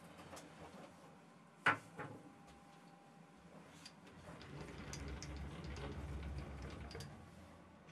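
Quiet handling of a micrometer and tools at a stopped lathe: one sharp metal click about one and a half seconds in, faint scattered ticks, and a low rumble in the second half.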